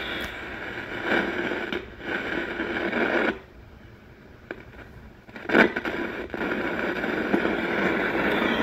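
Cassette tape playing through the small built-in speaker of a Wynford Hall AM/FM radio cassette recorder, thin and scratchy. The deck plays poorly and only runs while the cassette is held down. The sound drops away for about two seconds midway, then comes back after a sharp click.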